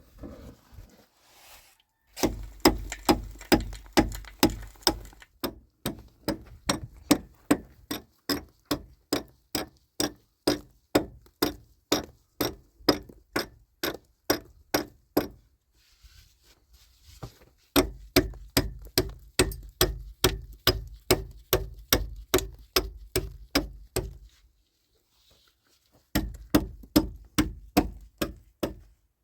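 A steady run of sharp knocking strikes, about two to three a second, stopping twice for a couple of seconds before starting again.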